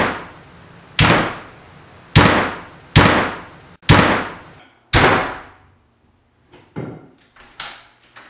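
Five loud, heavy impacts about a second apart, each trailing off over most of a second, then a few fainter knocks in the last couple of seconds.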